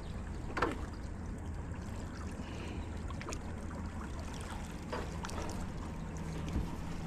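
Water lapping and trickling around a small fishing boat, over a steady low hum, with a few faint scattered clicks.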